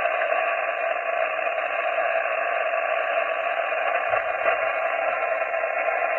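Amateur radio transceiver receiving steady band static, an even hiss limited to the narrow voice band of single-sideband, while listening for answers to a CQ call; no station comes through.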